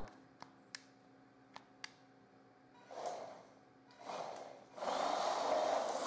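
A few faint clicks, then a toy RC car's small electric drive motor and gears running in two short bursts and then steadily from about five seconds in, with a faint wavering whine.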